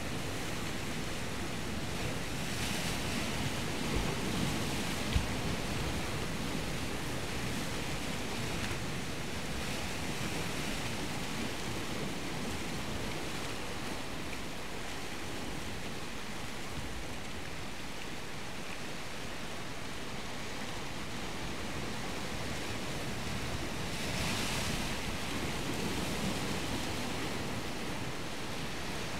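Waves washing in, with wind on the microphone, swelling louder twice. There is a single sharp click about five seconds in.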